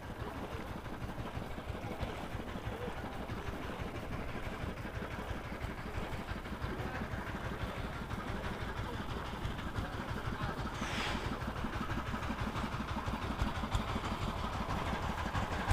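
A small engine running steadily and gradually getting a little louder, with a brief hiss about eleven seconds in.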